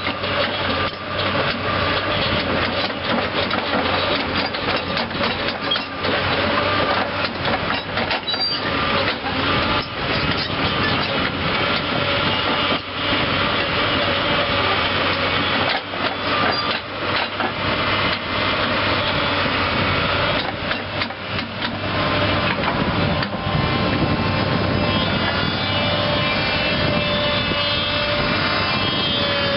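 Mitsubishi 6D16 six-cylinder diesel engine of a Kobelco SK330LC excavator running steadily, with frequent sharp knocks and clatter. Near the end a higher whine of several tones comes in over the engine.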